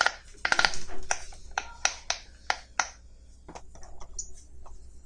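Silicone pop-it fidget toy bubbles being pressed and popping: a quick run of pops, then single pops about every quarter second, turning to softer clicks after about three seconds.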